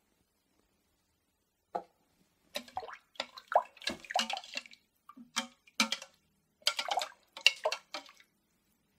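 A metal spoon clinking and knocking against the stainless-steel inner pot of an electric pressure cooker, with light splashing in the water, as salt is stirred in. A dozen or so irregular sharp clinks, starting about two seconds in and stopping shortly before the end.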